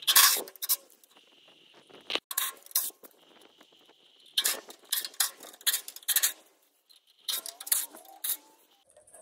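Cordless power driver backing screws out of a sheet-metal cabinet panel in several short bursts, with metallic rattling.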